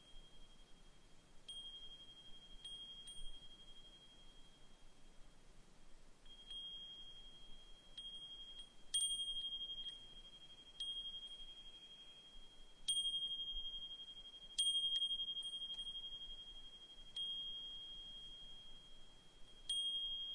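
Brass suzumushi furin (Japanese wind chime) ringing as its clapper strikes at uneven intervals, a dozen or so times. Each strike gives one clear, high tone that dies away slowly, and a few stronger strikes come in the middle.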